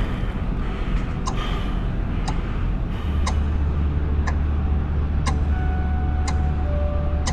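Sharp ticks like a clock, evenly spaced about once a second, over a deep steady drone that swells about three seconds in. A few faint held tones join in near the end.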